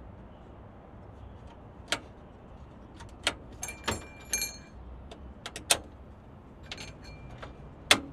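Sharp metallic clicks and clacks of a 1975 Ford Maverick's trunk latch being snapped and released by hand to test that the newly reinstalled lock opens. A few of the clicks ring briefly, and the loudest clack comes near the end.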